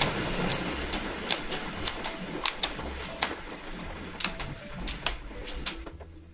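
Kitchen scissors snipping a green chili pepper into a pot, with irregular sharp snips about two or three a second, over the bubbling of boiling ramyeon broth that fades toward the end.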